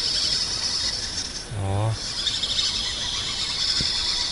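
Steady high-pitched drone of insects in the summer riverside grass. About a second and a half in, a short low hum-like vocal sound is heard.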